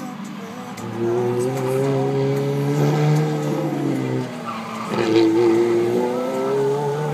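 High-revving sports car engine pulling hard, its pitch climbing for about three seconds, dropping briefly, then climbing again, with tyres squealing as the car is thrown around a cone course.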